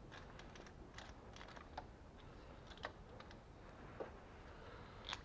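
Socket ratchet clicking as the timing-belt tensioner roller's bolt is unscrewed: a string of quiet, irregular clicks, with one sharper metal clink near the end.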